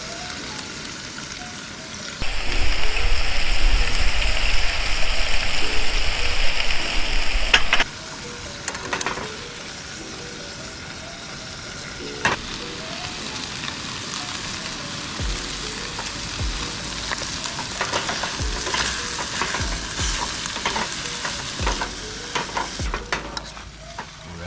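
Food sizzling as it fries in a pan over a campfire, with the clicks and scrapes of a utensil stirring it. The sizzle is louder for several seconds about two seconds in, then settles.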